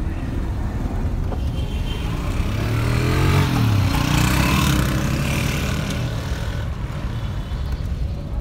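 A motorcycle engine passing close alongside, heard from inside a moving car, rising and then falling in pitch as it goes by and loudest in the middle, over the car's steady low road rumble.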